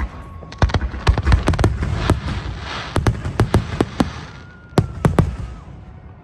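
Aerial fireworks bursting: a rapid run of sharp bangs, with crackling from the bursting stars about two to three seconds in.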